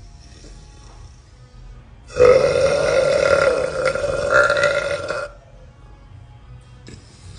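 A woman burping on purpose: one long, loud burp lasting about three seconds, starting about two seconds in.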